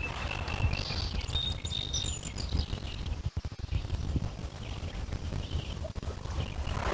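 Birds chirping, a few short high calls in the first three seconds, over a low, uneven rumble of small lake waves lapping against shore stones.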